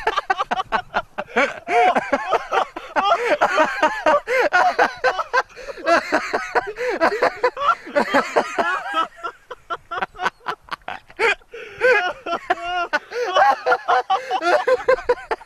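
People talking, speech the recogniser did not write down.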